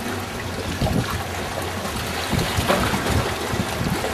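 Wind buffeting the microphone, irregular low rumbling over a steady rushing noise.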